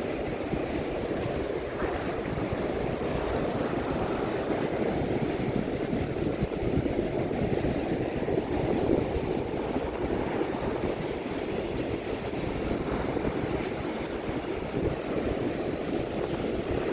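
Atlantic Ocean surf breaking on the beach, heard as a steady rushing wash, with wind buffeting the microphone.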